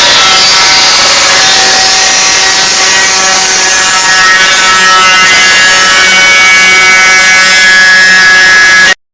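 Grinder working on sheet-metal spot welds and rust along a car floor-pan seam, a loud steady whine that cuts off abruptly near the end.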